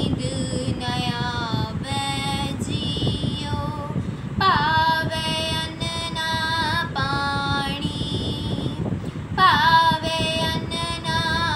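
A girl singing a Sikh shabad (devotional hymn), solo and without an instrument, in long held phrases that glide in pitch, with short breaks between phrases. A steady low rumble runs underneath.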